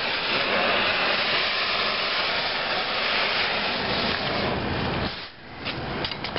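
Oxy-fuel cutting torch hissing steadily as it cuts through a steel link of a dragline bucket chain. The hiss stops abruptly about five seconds in, and a few short clicks follow.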